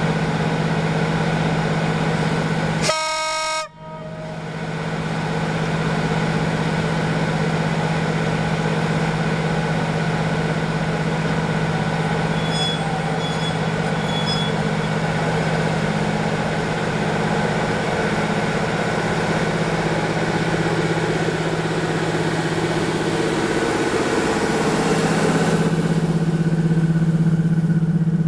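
CFR LE 5100 electric locomotive humming steadily at the platform. It gives one short horn toot about three seconds in, and near the end the hum grows louder as it starts off and pulls past.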